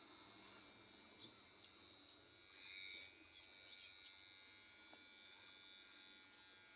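Electric hair clipper buzzing faintly and steadily as it cuts hair, swelling a little about three seconds in.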